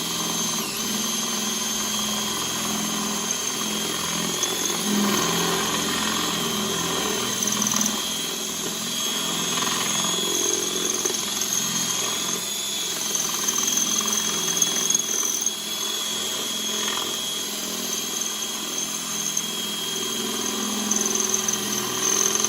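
Electric drill running steadily with a high-pitched motor whine as its bit is pressed into the car's body metal to bore a drain hole.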